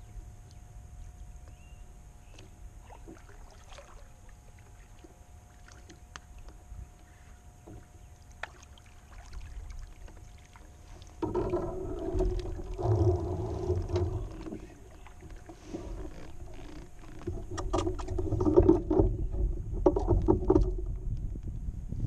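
Fishing kayak on the water in high wind: a low rumble of wind with small knocks and clicks, turning much louder and rougher about halfway through.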